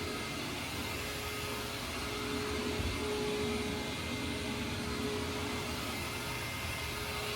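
Hoover WindTunnel Supreme upright vacuum cleaner running steadily with a constant motor whine, getting slightly louder about two seconds in.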